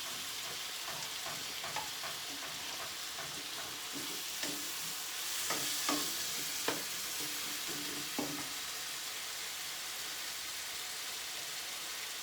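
Chicken pieces sizzling in oil with onion and tomato masala in a pan, stirred with a spoon that scrapes and clinks against the pan. The stirring strokes thin out after about eight seconds while the sizzle goes on.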